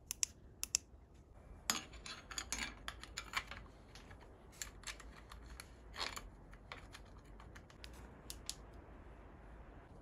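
Scattered small plastic clicks and taps, thickest a couple of seconds in and again around the middle: a battery-powered bicycle rear light being handled, closed up and fitted to the rear carrier.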